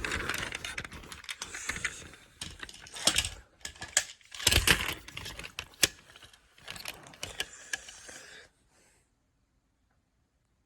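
Irregular clicking and rattling of small hard objects being handled, with a few louder clatters, stopping abruptly about eight and a half seconds in.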